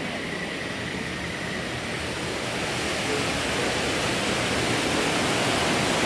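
Steady rushing splash of a man-made waterfall pouring down artificial rockwork, slowly growing louder as it draws closer.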